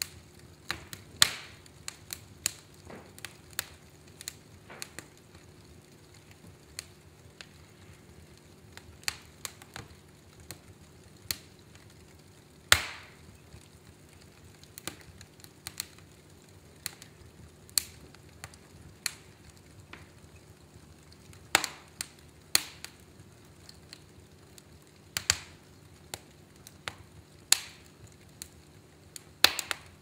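Wood logs burning in a fireplace, crackling: irregular sharp pops and snaps over a faint steady background, a few pops much louder than the rest and several seconds apart.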